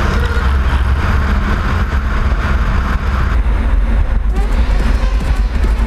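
Honda Civic Type R driving on a wet road at night, heard through an outside-mounted camera: a steady low engine and road rumble under a hiss of tyre spray and wind, the hiss easing a little about three and a half seconds in.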